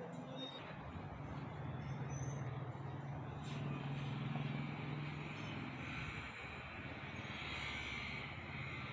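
A motor vehicle engine running steadily, a low drone that drops in pitch about six seconds in, over general street noise.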